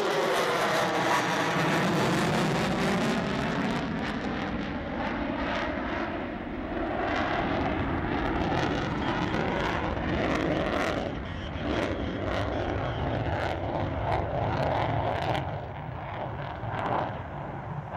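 F-14B Tomcat's twin GE F110 jet engines passing by: the pitch drops at the start, then a loud jet roar with crackling that eases off somewhat near the end.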